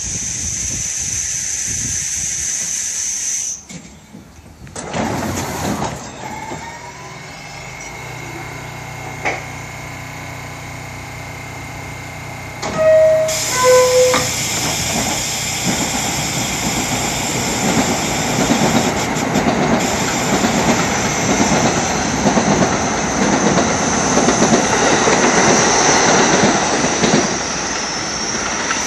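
R68A subway train standing at an elevated station with a steady high hiss, then its two-note descending door chime sounds about 13 seconds in. The train then pulls out, its motors and wheels growing louder as it accelerates away.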